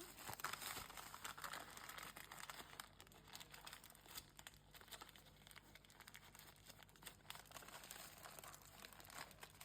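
Faint crinkling and rustling of wrapping paper being handled and folded around a shawarma wrap, in scattered small crackles.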